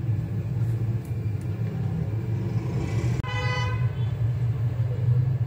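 A steady low rumble, with one short flat-pitched toot a little over three seconds in.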